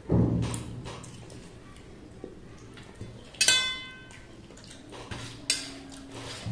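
Hand-eating from stainless steel plates: a dull thump at the start, then a sharp ringing clink of steel about three and a half seconds in, with a few smaller clicks.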